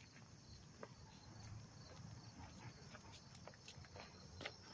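Quiet footsteps of a walker and a dog on a gravel path: scattered faint crunches and ticks at an uneven pace.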